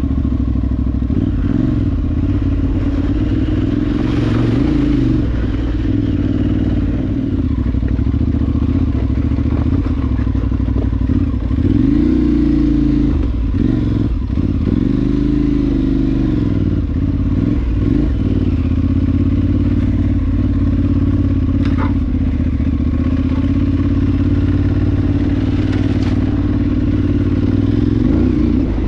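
Adventure motorcycle's parallel-twin engine running under riding load off-road, its pitch rising and falling with the throttle several times, with a few light knocks and clatter from the terrain.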